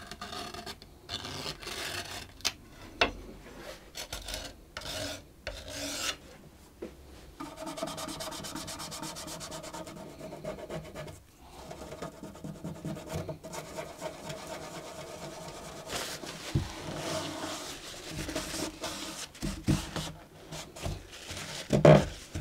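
Softened old glue being scraped off a cello fingerboard with a blade in short separate strokes. From about seven seconds in, a brush scrubs glue residue off the wet cello neck in a steady rub, with cloth wiping and small knocks near the end.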